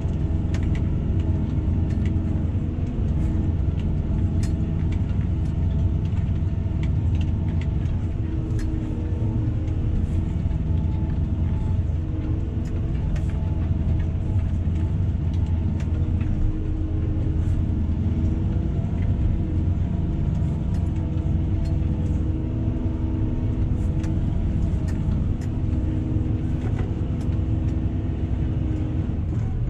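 Tractor engine running at a steady speed while working a field, a constant deep drone with faint ticks and rattles over it.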